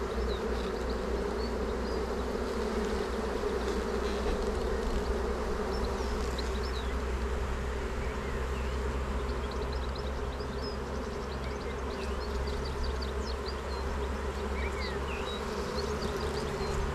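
Honeybees buzzing around an opened hive: a colony's steady hum as a frame crowded with bees is lifted out.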